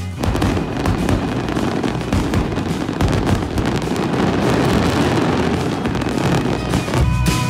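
Fireworks display going off: a dense, continuous crackle of many overlapping bursts. Music comes back in near the end.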